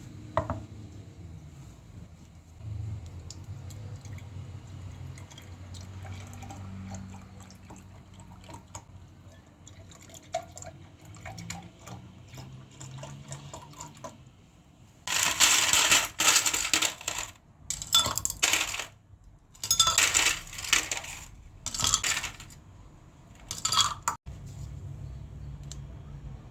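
Ice and glassware clinking in six loud clattering bursts starting about halfway through, after a stretch of faint low hum.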